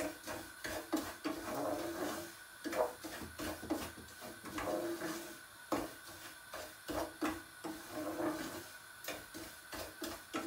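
Wooden spoon scraping and stirring roasting semolina in a coated pot, in uneven strokes about once a second.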